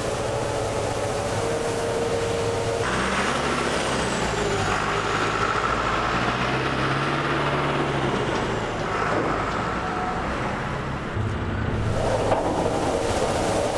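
Tractor-drawn vertical-auger feed mixer wagon working, with engine and machinery noise throughout. The sound changes abruptly about three seconds in and again near the end, as the shots change.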